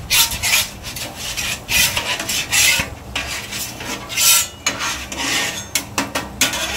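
A metal spatula scraping across the steel cooktop of a Blackstone 22-inch griddle in a series of irregular strokes, spreading cooking oil over the preheated surface.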